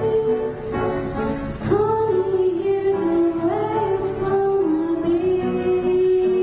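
A girl's solo singing voice carries a show tune in long held notes that slide from one pitch to the next, over instrumental accompaniment.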